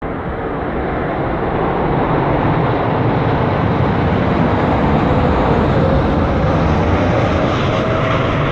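A jet airliner flying low overhead: a loud, steady engine roar with a faint whine running through it.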